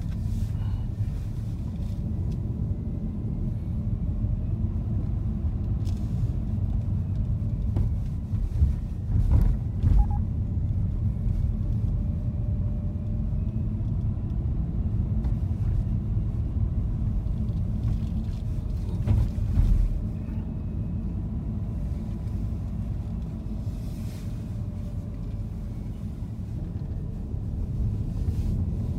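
Car driving slowly, giving a steady low rumble of engine and road noise. A few brief louder knocks come about a third of the way in and again about two-thirds in.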